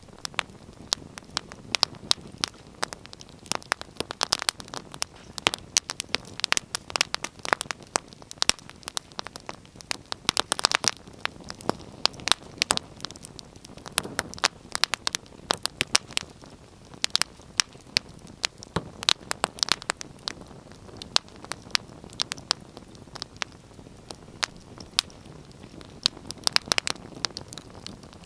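Wood fire crackling, with many sharp irregular pops and snaps of varying loudness over a soft low hiss.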